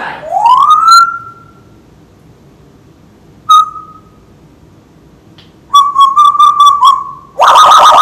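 African grey parrot whistling a string of sound-effect imitations: first a rising whistle that levels off and holds, then a short note, then a quick warbling run of about five pulses. It ends with a louder, rougher call.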